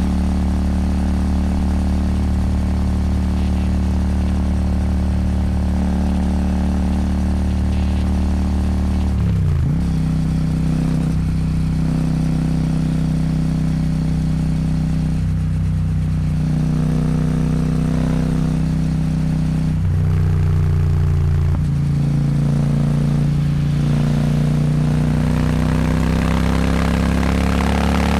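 Royal Enfield Super Meteor 650's parallel-twin engine running through an aftermarket slip-on exhaust, with wind noise, heard from the saddle while cruising. The engine note drops and picks up again about nine seconds in, shifts a few more times, and climbs steadily near the end as the bike accelerates.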